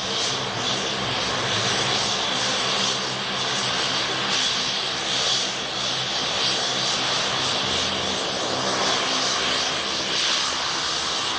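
Fixed-wing aircraft engine running steadily and loudly: a continuous rushing noise over a constant hum of several low tones, cutting in abruptly at the start.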